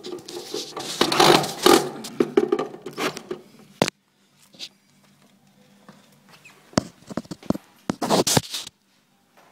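Close handling noise while screws are fitted into the stand's panel: loud rustling and scraping for the first few seconds, a sharp knock just before the fourth second, then a few clicks and short scrapes near the end.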